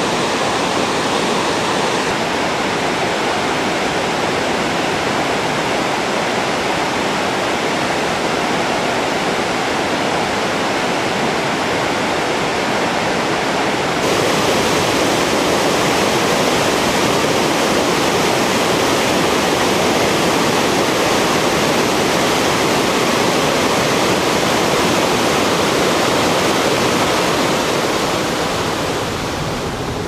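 Wide river waterfall rushing steadily, a dense hiss of falling water and rapids. About halfway through it becomes a little louder and brighter, as from closer to the falls, and it eases slightly near the end.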